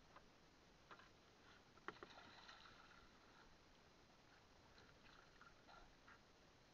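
Near silence, with a few faint knocks against the small boat's hull and a brief soft splash of water about two seconds in.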